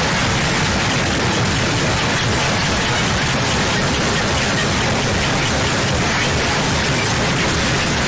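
Loud, steady hiss of static-like white noise, unchanging throughout.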